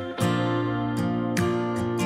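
Background music with acoustic guitar strumming chords.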